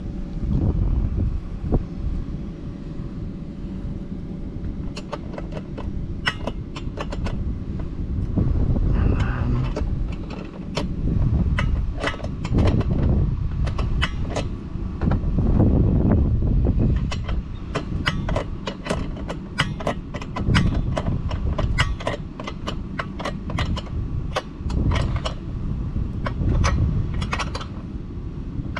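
A wrench tightening the nut on the enclosure's mounting bolt: a long, irregular series of short sharp clicks, beginning about five seconds in, over a continual low rumble.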